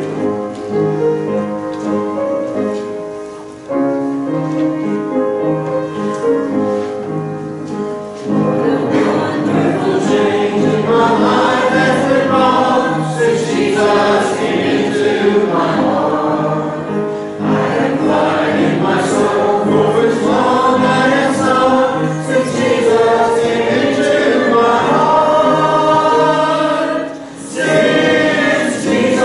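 A church congregation singing a hymn together with instrumental accompaniment. It follows a few seconds of held-note instrumental introduction: the voices come in about eight seconds in and pause briefly near the end.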